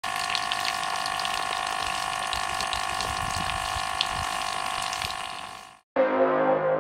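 Homemade mini water pump running steadily: its small battery-powered DC motor whining on a few fixed pitches over the hiss of water spurting from the tubing. The sound fades out near the end, and music starts.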